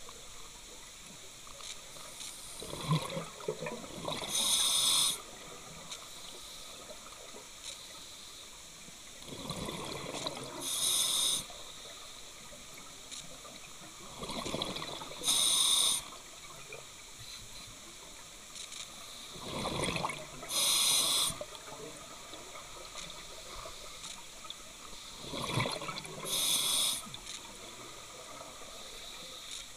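Scuba regulator breathing underwater: five breath cycles about every five to six seconds. Each cycle is a rising rush of air and bubbles followed by a short bright hiss, over a steady background hiss.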